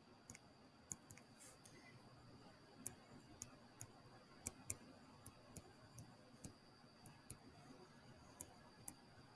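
Faint, irregular light clicks, one to three a second, from a stylus tapping and striking on a touchscreen as equations are handwritten.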